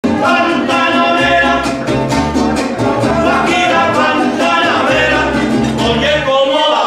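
Mariachi band playing a song: strummed guitar and vihuela, a violin and a deep guitarrón bass line, with singing.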